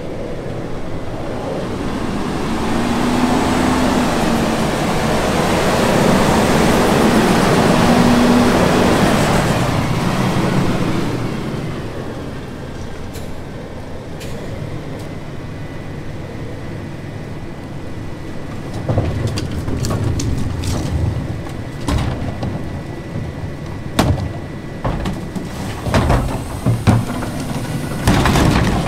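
Autocar ACX McNeilus rear-load garbage truck working. For about the first eleven seconds the engine revs up with a wavering hum, as the hydraulic packer cycles. It then drops back to a quieter idle, with a series of knocks and clunks in the last ten seconds.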